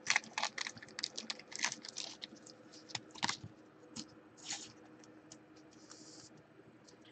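Rapid clicks and taps of fingers handling a thick trading card, dense at first and thinning out after about three and a half seconds, then a short swish and a brief scrape as the card is set down on the mat.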